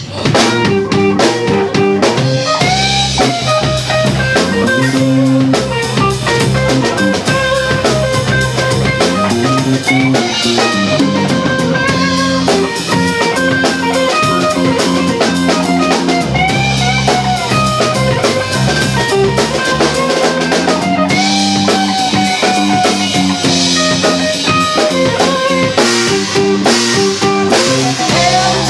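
Live band playing an instrumental passage: drum kit and guitars, with bent guitar notes sliding in pitch.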